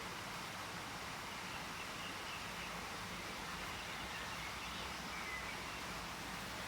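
A stream running steadily, with a few faint bird calls over it.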